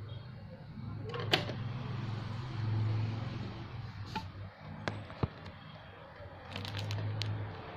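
Sharp plastic clicks and taps from a CD case and its packaging being handled, a few spread out and a quick cluster near the end, over a low rumble that swells twice.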